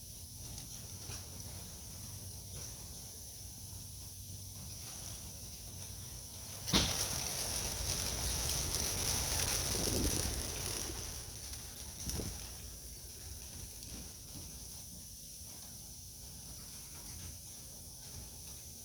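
A sharp knock, then about four seconds of rushing wing noise from a flock of young racing pigeons taking off, over a steady high insect drone.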